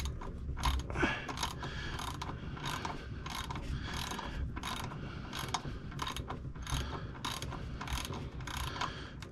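Hand ratchet with a 16 mm socket clicking steadily, about two to three clicks a second, as it works a tight oil drain plug loose.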